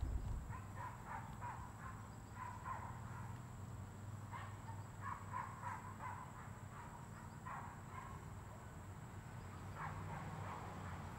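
Birds calling in irregular clusters of short repeated notes, over a steady low rumble and a thin, steady high-pitched tone.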